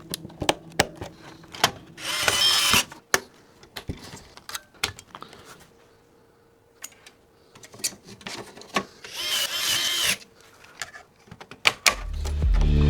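A cordless power driver runs twice in short bursts of about a second each, driving screws, with a whirring that wavers in pitch. Sharp clicks and clacks of hardware and case parts being handled come in between. Music starts near the end.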